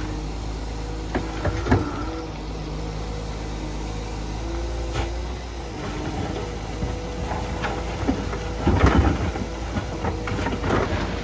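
Wheeled excavator's engine running steadily while the bucket digs into soil and gravel, with a few clunks early on and a louder burst of scraping and clattering about nine seconds in.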